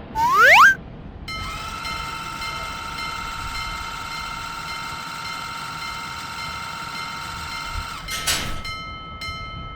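Cartoon sound effects: a short rising slide-whistle glide at the start, then a steady high electronic tone with several overtones held for about seven seconds, broken by a brief whoosh about eight seconds in, after which a fainter tone carries on.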